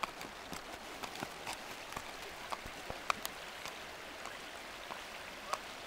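Horse's hooves clicking on a cement bridge at a walk, a few light strikes a second, over a faint steady rush of flowing water.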